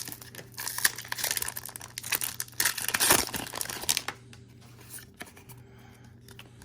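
Crinkling and rustling of a Pokémon card booster pack and its cards being handled, with many small sharp crackles for about four seconds, then fainter handling noise.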